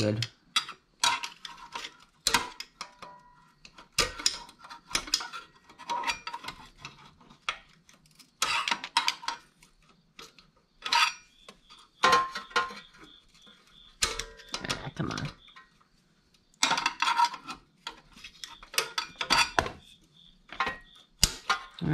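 Screwdriver tips clinking and scraping against a valve spring and retainer in a small engine's valve chamber, in irregular clusters of metallic clicks, a few of them ringing briefly, as the spring is pried into place without a spring compressor.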